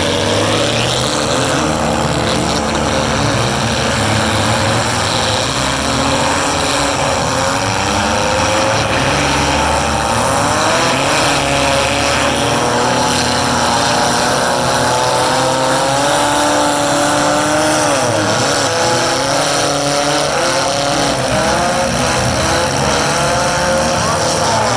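Several four-cylinder demolition derby cars' engines running and revving at once, a loud, steady din of overlapping engine notes that keep rising and falling.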